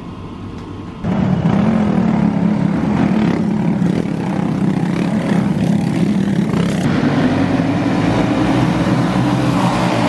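Several winged dirt-track racing karts running their engines together as they roll along the track, a loud steady drone. It comes in abruptly about a second in, over a fainter engine hum before it.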